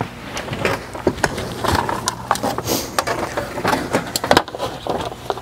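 Irregular knocks, bumps and rustling of a person climbing up into a semi-truck cab and settling into the driver's seat, over a low steady hum.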